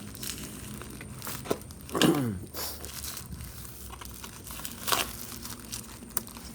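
Cardboard shipping packaging being opened by hand: crinkling, tearing and crackling, with a short squeak falling in pitch about two seconds in.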